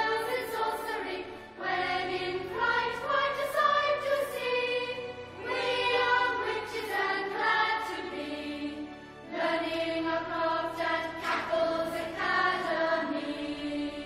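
Closing theme music with a choir singing.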